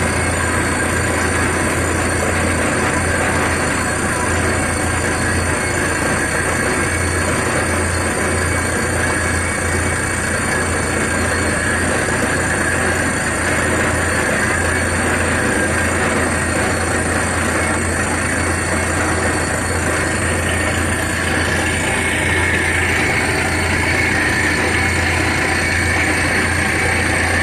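Borewell drilling rig running steadily at work: continuous engine and compressor noise with the rush of compressed air blowing the dust cloud up out of the bore hole.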